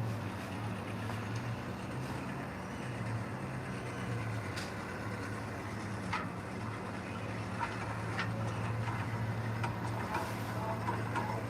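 Heavy earthmoving machine's diesel engine running steadily at a low hum, with a few scattered sharp clanks and knocks.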